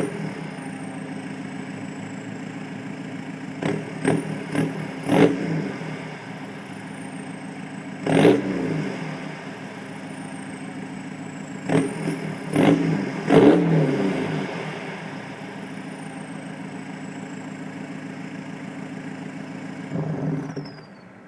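2012 VW Golf 2.0 TDI four-cylinder diesel with a straight-pipe exhaust, idling with a high, steady turbo whistle. Three clusters of quick throttle blips, a few seconds in, around the middle and a little later, each push the whistle up, and it sinks slowly back as the turbo spools down. Near the end the engine note drops away while the whistle winds down.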